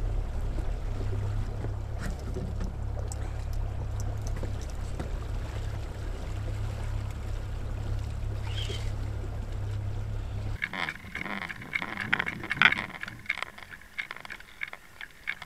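Small outboard motor running steadily at trolling speed, a low hum. About ten seconds in it gives way to the muffled sound of moving water picked up by an underwater camera, with scattered clicks and knocks, one of them sharply louder than the rest.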